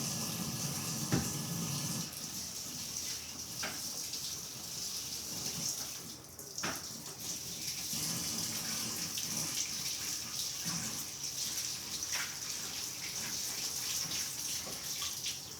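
Water running from a tap in a steady hiss while hands are washed under it, with a few light knocks.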